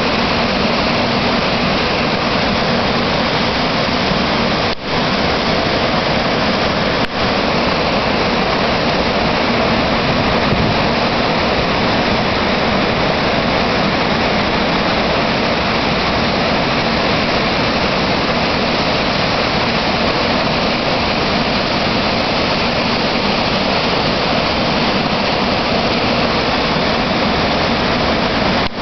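Cohoes Falls on the Mohawk River pouring over its wide rock ledge in high flow: a loud, steady noise of falling water. The sound briefly drops out twice, about five and seven seconds in.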